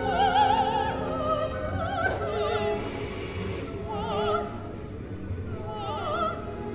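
Background music of operatic singing, long held notes with a wide, regular vibrato.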